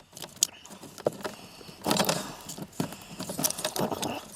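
Small metal parts and plastic connectors being handled under the car's dash: scattered clicks and short jingling rattles, busiest about two seconds in and again near the end.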